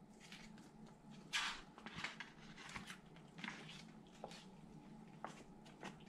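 Faint, scattered rustles and soft taps of a paperback picture book being handled and opened to its first page.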